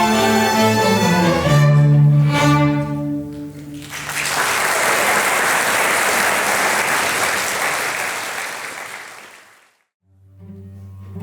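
A student string orchestra ends a piece on held chords. Applause follows and fades out. Near the end, cellos and basses begin a new piece with low sustained notes.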